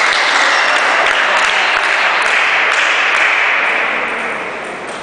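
Spectators applauding after a table tennis point, the clapping dying away near the end.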